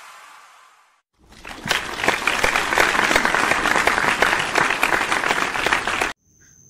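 Applause: many hands clapping in a dense patter that swells in about a second in and cuts off abruptly near the end. Before it, the ringing tail of a hit fades out.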